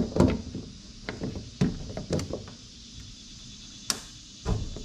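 Scattered small clicks and knocks, about six in all with one sharp click near the end, from handling a mini Jeep's five-pin ignition switch while its retaining nut is screwed on by hand.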